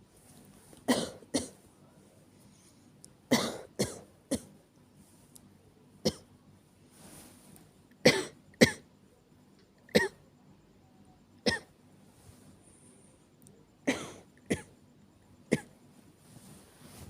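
A woman coughing over and over, acted rather than from real illness: about thirteen short coughs, mostly in pairs or threes, with pauses of one to two seconds between the bouts.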